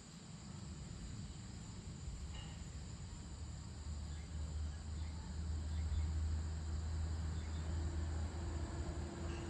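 Evening chorus of crickets and other insects, a steady high-pitched trill. A low rumble, most likely distant traffic, swells from about four seconds in and becomes the loudest sound.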